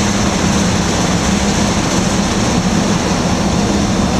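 Bucket wheel excavator's machinery running: a loud, steady mechanical drone with a constant low hum and no change in pace.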